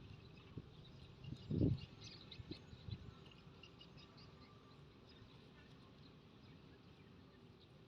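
Small birds chirping faintly, with a dull low thump about a second and a half in and a couple of lighter knocks just after.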